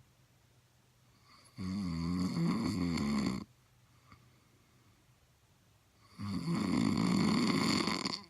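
Snoring: two drawn-out snores of about two seconds each, the first starting about a second and a half in and the second near the end, with quiet breathing gaps between.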